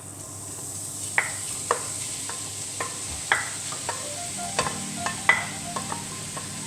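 Minced tofu sizzling as it goes into hot coconut oil in a pan, the sizzle building over the first second. A spoon clicks and scrapes against the pan every half second or so as the tofu is stirred.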